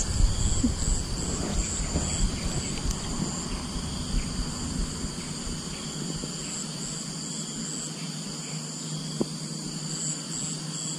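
Insects trilling steadily at a high pitch, one call pulsing on and off. A low rumble underneath stops about five seconds in.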